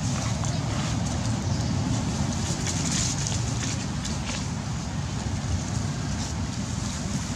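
Steady outdoor background noise: a fluttering low rumble with an even hiss above it, like wind buffeting the microphone, and a few faint ticks.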